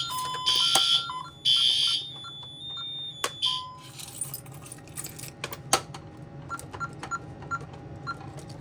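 Fire alarm sounder on a Honeywell Vista alarm panel, set off by a Simplex key test switch on zone 6. It sounds loud, buzzy half-second blasts about a second apart in the three-pulse fire pattern, then stops about two seconds in. After that come faint short keypad beeps repeating, with a few sharp clicks.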